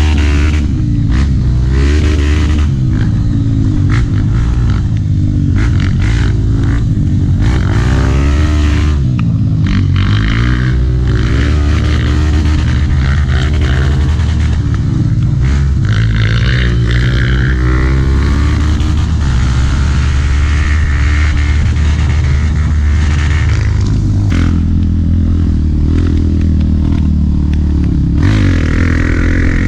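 Honda CRF trail bike's single-cylinder four-stroke engine, heard on board while riding a rough trail, its pitch rising and falling constantly as the throttle opens and closes. Short knocks come through all along.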